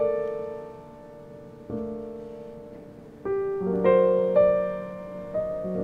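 Slow background piano music: single chords struck every second or two and left to ring, growing fuller and higher in the middle.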